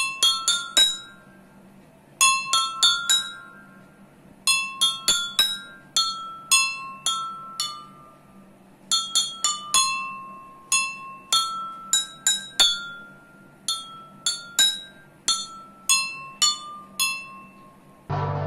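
A simple tune played note by note on five water-filled drinking glasses, each struck glass giving a clear bell-like ring that fades out. The notes come in short phrases separated by brief pauses.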